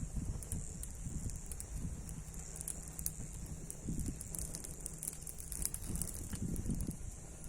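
Wood fire crackling, with scattered sharp pops and snaps over a steady high hiss.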